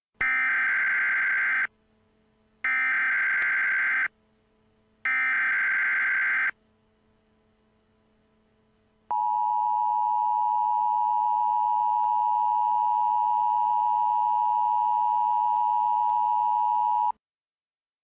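Emergency Alert System signal on NOAA Weather Radio. Three bursts of SAME digital header data, each about a second and a half long, are followed by the steady 1050 Hz warning alarm tone for about eight seconds, which cuts off suddenly. The signal marks the start of a flash flood watch alert.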